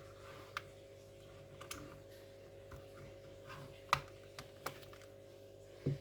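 Irregular light clicks and taps of plastic laptop case parts and tools being handled during disassembly of an Acer Aspire One 725 netbook. There is a sharper click about four seconds in and a duller knock near the end, over a faint steady hum.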